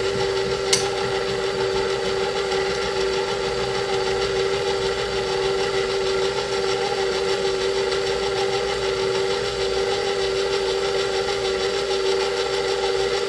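KitchenAid stand mixer motor running steadily with a constant whine, driving its pasta roller attachment to roll black modeling chocolate paper-thin. A single sharp click comes under a second in.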